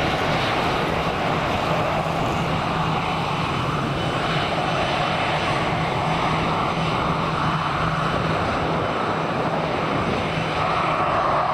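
A departing airliner's engines, loud and steady: a wide rushing noise over a steady low hum, growing a little louder near the end.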